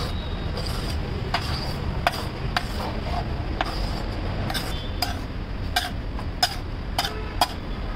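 Metal spatula scraping and clicking against a large flat tawa as chunky boiled vegetables are pushed across it. The clicks come irregularly, about once or twice a second, over a steady low background hum.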